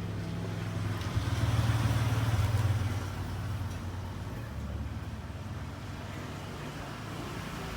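Two-stroke Kawasaki Ninja 150 single-cylinder engine running steadily, getting louder for about two seconds shortly after the start before settling back, as it is being set up after a rebuild.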